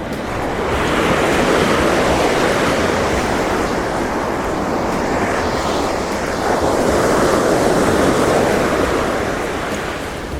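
Ocean surf breaking on a sandy beach, swelling twice as waves come in, with some wind on the microphone.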